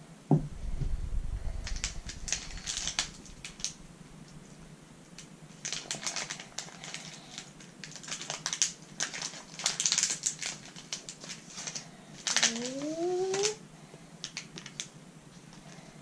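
Clear plastic packaging crinkling and crackling in three spells as it is worked open by hand, after a low thump at the start. There is a short rising squeak about twelve and a half seconds in.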